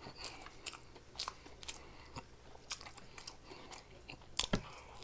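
A person chewing a mouthful of sloppy joe sandwich: faint, wet mouth clicks and smacks, with one sharper smack about four and a half seconds in.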